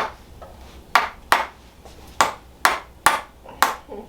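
About eight sharp, bright taps at uneven spacing, each ending quickly: chiropractic adjusting taps on the hip and pelvis.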